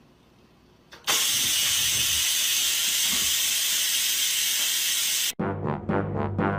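Electric pressure rice cooker venting steam: a loud, steady hiss that starts suddenly about a second in and cuts off abruptly about five seconds in. Music with brass follows near the end.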